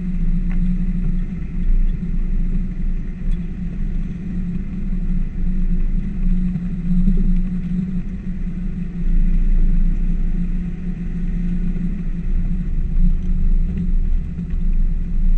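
P38 Range Rover driving along a lane, heard from inside the cabin: a steady low rumble of engine and road noise.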